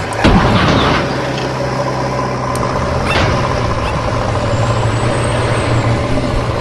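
Heavy truck engine running steadily, with a sudden loud burst about a quarter second in and a couple of fainter clicks later.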